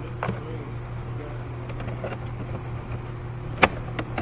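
Plastic engine-bay covers and hose fittings being handled and pressed into place, with faint clicks and one sharp, loud snap about three and a half seconds in, followed by a lighter click. A steady low hum runs underneath.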